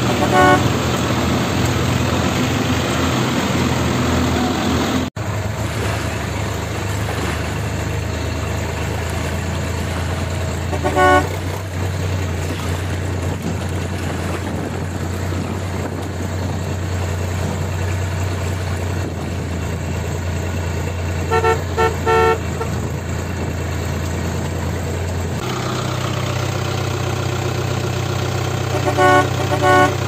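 Steady vehicle engine drone with short horn toots now and then: a toot at the start, one about eleven seconds in, a few more past the twenty-second mark and one near the end.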